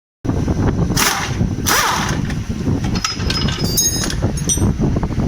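Workshop noise: a loud low rumble with two short hissing bursts about one and two seconds in, then several light metallic clinks of hand tools on bolts and metal parts in the second half.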